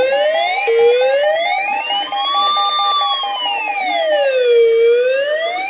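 Electronic siren sounding as the alarm ahead of a severe thunderstorm warning: a quick rising yelp, then, from under a second in, a slow wail that rises, falls and rises again. Under it run a fast pulsing beep, which stops after about four seconds, and a steady high tone.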